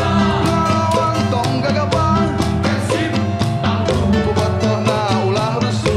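Live band music with a steady beat, in which Sundanese bamboo karinding (jaw harps), played at microphones, join guitar in a rock-styled song.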